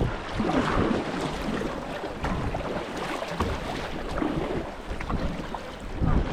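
Kayak paddle strokes and river water splashing, with wind buffeting the microphone in a low rumble.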